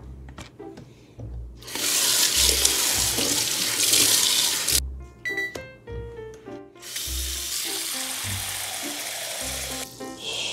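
Kitchen tap running into a stainless steel sink and then into a mixing bowl, filling it with water, in two long spells: from about two to five seconds in, and again from about seven seconds to near the end. Background music with a steady beat plays under it.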